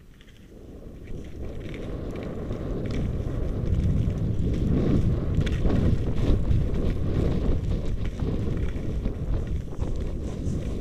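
Wind buffeting a moving skier's camera microphone, a low rumble that builds over the first few seconds as speed picks up and then holds steady, with short scrapes of skis on the snow.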